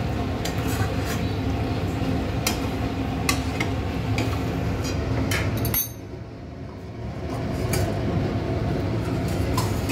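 Metal spatula clinking and scraping against a metal wok-style pan as thick marinated mutton pieces are stirred and turned, a series of short sharp clicks over a steady kitchen hum. The hum drops away for about a second just before the middle.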